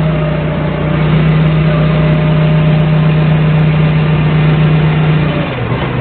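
Doosan 4.5-ton forklift's engine running steadily at raised revs with a constant drone. About five seconds in, the revs fall away to a lower pitch.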